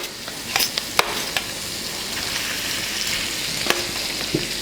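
Browned chicken pieces sizzling in hot oil as they are laid into a pot of fried onions, with a steady hiss and a few sharp clicks as they go in.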